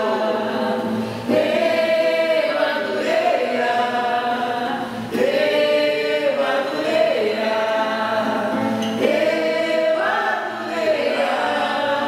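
A small group of voices singing a song together in long held phrases, to a strummed acoustic guitar.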